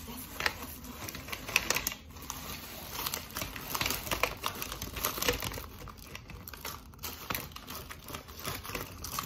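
Plastic bag of fruit crinkling and rustling as it is handled and emptied, with many irregular crackles.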